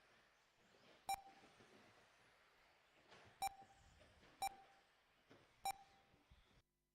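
Race lap-timing system giving four short electronic beeps at uneven intervals, each sounding as a car crosses the timing line, over faint background hiss. The audio cuts off abruptly near the end.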